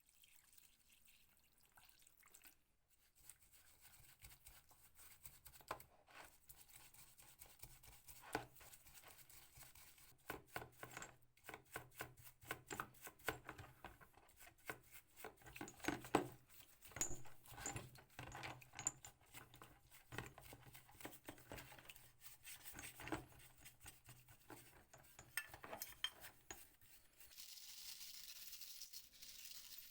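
Irregular clinks, knocks and scrapes of small metal parts being handled and worked on an old hand drill, over a faint low hum, with a soft hiss near the end.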